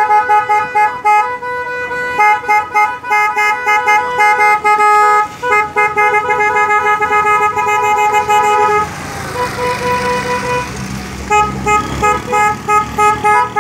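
Car horns honking in many short repeated toots from passing cars, several horns of different pitch overlapping. About nine seconds in the honking pauses while an engine passes close by, then the toots start again.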